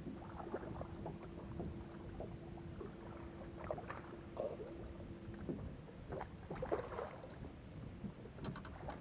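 Bow-mounted electric trolling motor on a bass boat running with a steady hum, which cuts off about five and a half seconds in, over light scattered knocks and water noise around the boat.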